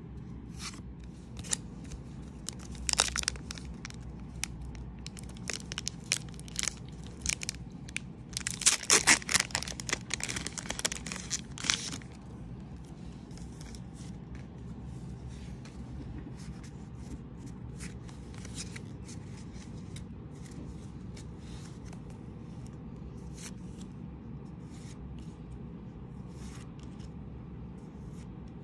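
Foil Pokémon booster pack wrapper being handled and torn open: a run of sharp crackles and tearing that ends abruptly about twelve seconds in. After that, only faint scattered ticks of trading cards being slid and flipped.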